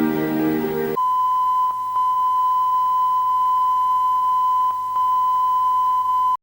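Music cuts off about a second in and a steady single-pitch beep tone takes over. The tone, like a broadcast line-up test tone, holds for about five seconds and stops abruptly.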